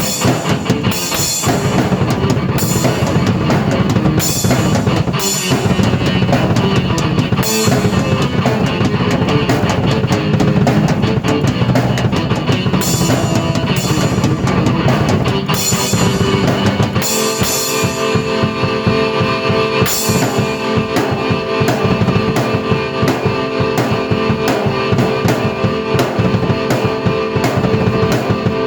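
Drum kit and keyboard played together in a rock-style song: kick, snare and frequent crash-cymbal hits. About 17 seconds in, held keyboard chords come forward while the drums keep going.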